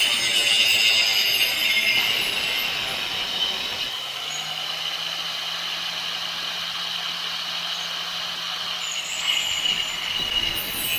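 Angle grinder grinding out a crack in a cast iron part: a high-pitched grinding screech that eases off about four seconds in, leaving a low steady hum, and picks up again near the end.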